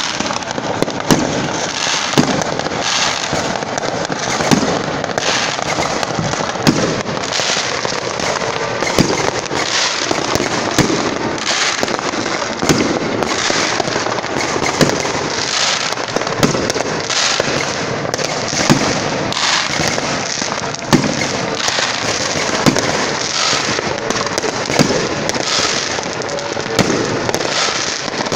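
Many fireworks and firecrackers going off at once: a constant crackling din with frequent sharp bangs, one or two a second.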